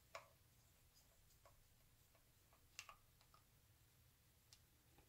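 Near silence broken by a few faint, irregular clicks of a small screwdriver turning tiny screws into the charger's plastic case.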